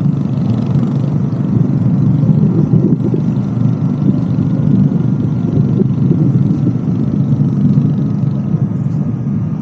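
Electric skateboard rolling along a paved path: a steady low rumble of the wheels on the road surface.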